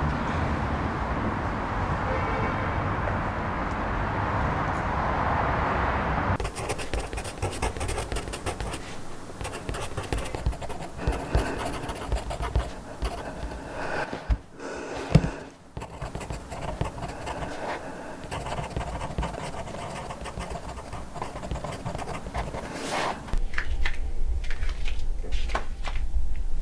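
A person panting and breathing hard. For the first six seconds this sits over a steady noisy hum. From about six seconds in come dense, irregular scratching and rustling strokes.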